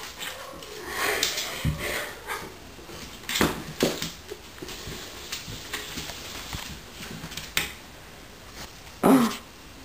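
Wet small white terrier rolling and rubbing herself on a hardwood floor and scrambling about, in the frenzy dogs often show after a bath: fur scuffing on the boards and claws scrabbling, with a few sharp knocks. A short, louder vocal sound comes near the end.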